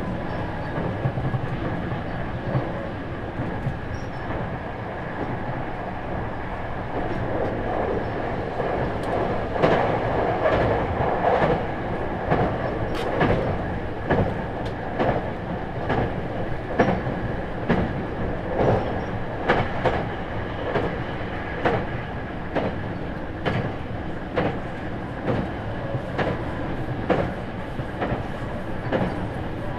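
Running noise inside a 651-series limited-express motor car (Moha 650) with MT61 traction motors: a steady rumble of wheels and running gear at speed with a constant high tone. From about ten seconds in, the wheels clack over rail joints in quick pairs, every second or two.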